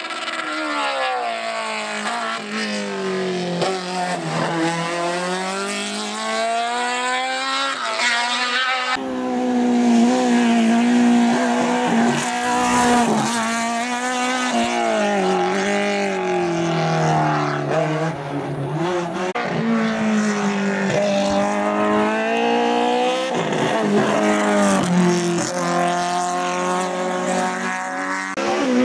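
Opel Kadett GTE hillclimb race car's engine revving hard, its pitch repeatedly climbing and then dropping back, with an abrupt change in the sound about nine seconds in.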